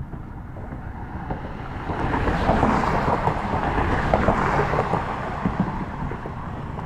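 Wind buffeting the camera microphone: a low rumble with crackle that builds about two seconds in and eases near the end.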